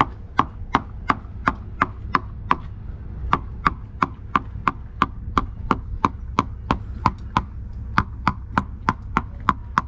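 Plastic screwdriver handle tapping along a painted wooden boat hull, about three sharp taps a second with a short pause about three seconds in. Each tap gives a good sharp ringing sound, the sign of solid wood with no rot.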